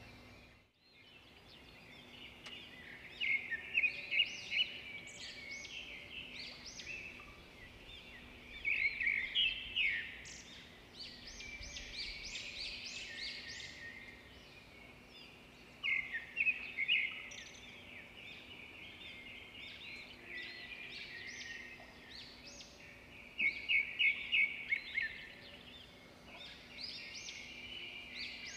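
Birds chirping: quick runs of short, high chirps that come in louder clusters every several seconds, over a faint steady hum.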